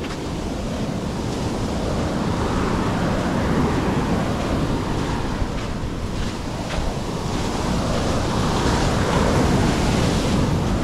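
Mediterranean surf washing onto the beach, swelling louder twice as waves come in, with wind buffeting the microphone.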